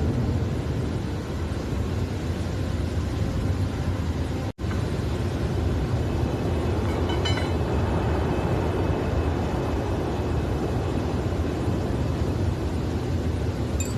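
Steady industrial machinery noise in a factory, a constant low rumble and hiss, with a brief drop to silence about four and a half seconds in and a faint metallic clink a few seconds later.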